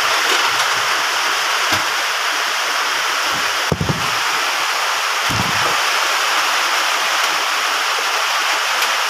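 Heavy rain falling steadily on a corrugated metal roof, a dense even hiss. Two dull knocks stand out, a little under four seconds in and again about a second and a half later.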